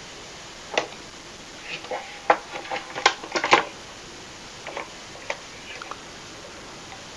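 Valve radio chassis being fitted back into its cabinet: a series of irregular knocks, clicks and light scrapes, thickest and loudest about three seconds in, with a few scattered taps afterwards.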